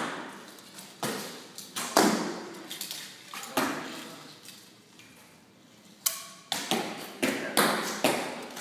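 Recurve bows shooting along a line of archers: sharp string releases and arrows hitting the target butts, about nine irregular thuds that ring on in a large hall, with a lull in the middle.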